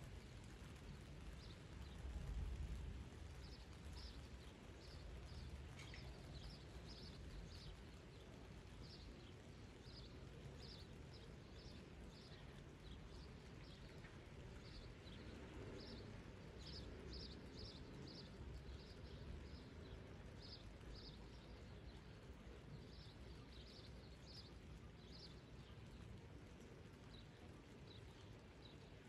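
Faint outdoor ambience: a low steady rumble with many short, high chirps repeating in loose runs through most of the stretch.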